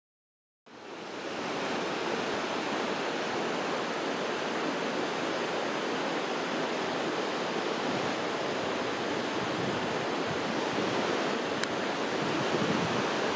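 Water rushing steadily, starting suddenly under a second in after a moment of dead silence.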